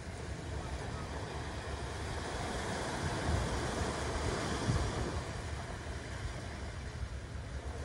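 Small waves breaking and washing up a sandy beach, swelling to a peak about halfway through as one wave breaks, over a low rumble of wind on the microphone.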